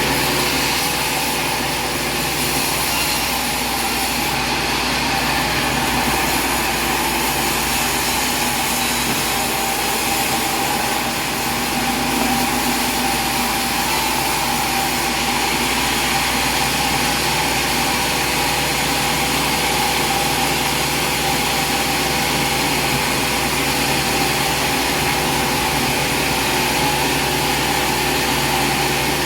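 A steady engine or machine running at an even pitch, with a constant hum and hiss.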